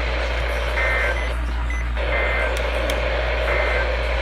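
Three short warbling data bursts of the EAS/SAME end-of-message code, each a fraction of a second long and about 1.3 s apart, signalling that the weather radio alert is over. They sit over the receiver's steady low hum and static.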